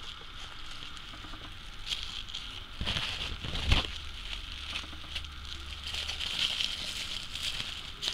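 Plastic bubble wrap crinkling and rustling as it is wrapped and handled, with irregular small crackles. There is a dull knock about three and a half seconds in.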